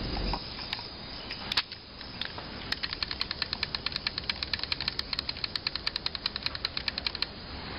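Rapid, even ticking, about ten sharp clicks a second, that starts about three seconds in and stops shortly before the end, over a steady low background.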